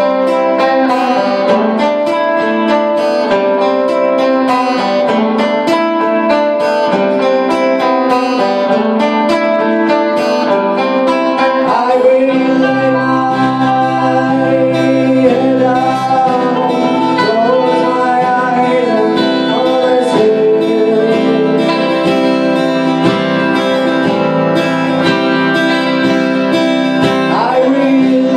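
Live acoustic and electric guitar playing together, with a man's voice singing over them from about twelve seconds in.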